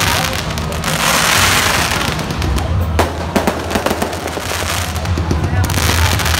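Aerial fireworks bursting into crackling stars, with a dense run of sharp crackles and pops about halfway through.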